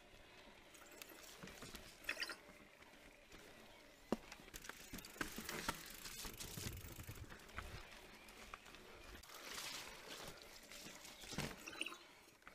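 Specialized Turbo Levo electric mountain bike rolling down a dirt trail: tyres crunching over the ground, with the bike rattling and irregular knocks as it goes over bumps, loudest about two seconds in, around four to seven seconds and near the end.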